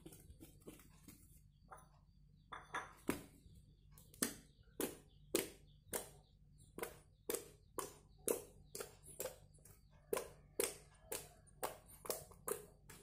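Thick white tofu slime being squeezed in the hands, then poked and pressed against a tile floor, giving a run of sharp clicking pops at about two a second after a short pause near the start.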